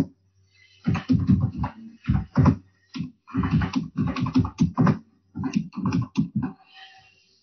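Typing on a computer keyboard: about twenty keystrokes in quick, uneven runs with short pauses between.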